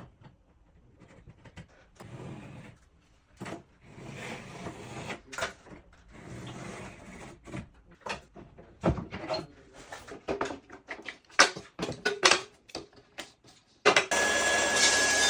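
Knocks, clicks and rubbing of a wooden kitchen panel and clamps being handled and positioned, with several sharp knocks in the middle. Near the end a power tool starts suddenly and runs steadily with a thin high whine.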